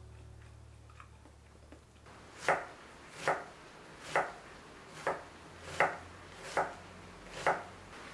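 Knife chopping onion on a wooden cutting board: seven sharp, evenly paced chops a little under a second apart, starting about two and a half seconds in.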